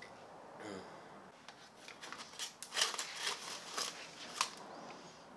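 Rustling and crackling handling noise: a run of short sharp clicks and crinkles over about three seconds, after a brief murmur of voice near the start.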